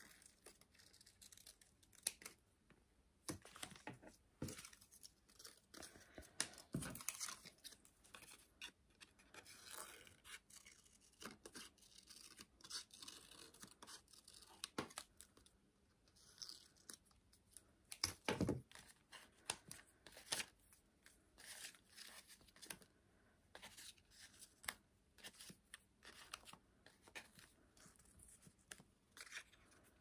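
Magazine paper being handled for a collage: irregular rustling, tapping and tearing of paper cutouts, with a louder burst of paper noise about eighteen seconds in.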